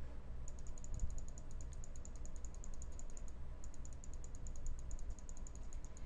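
Faint, rapid, evenly spaced clicking, about ten clicks a second, in runs a few seconds long with short breaks, over a low hum.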